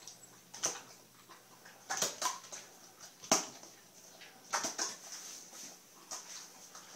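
A series of sharp clicks and knocks at irregular intervals, the loudest about three seconds in, over a faint steady high hiss.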